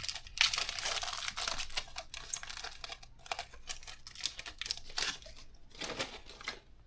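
Foil Pokémon booster pack wrapper crinkling as it is handled and opened. The crinkling is dense for the first few seconds, then thins to scattered crackles and clicks.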